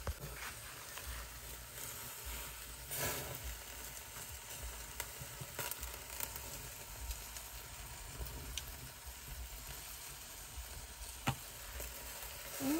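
Sausages and corn sizzling on a grill over an open fire: a steady frying hiss with a few sharp pops and crackles.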